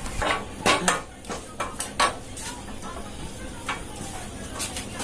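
Metal hand tools and engine parts clinking and knocking together in a quick, irregular series of sharp clinks, busiest in the first two seconds and again near the end, as parts are bolted back onto a motorcycle engine.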